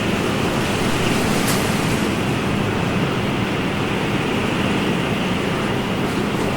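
Ocean surf as a steady, even rush of water noise, with no separate wave crashes standing out.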